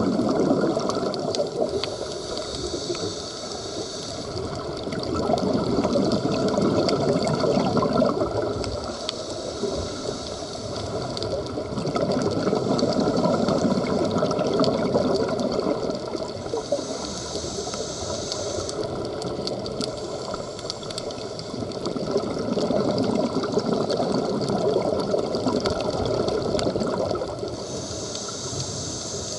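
A scuba diver breathing through a regulator underwater: a hiss on each breath in and a rush of exhaled bubbles on each breath out, in slow repeating cycles.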